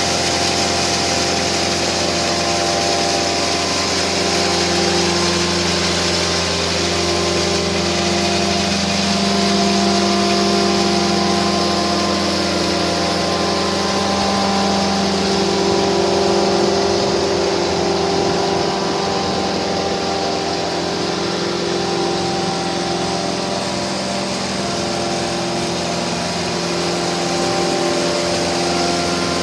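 The engine of a 2013 Altec WC126A wood chipper running steadily at an even speed.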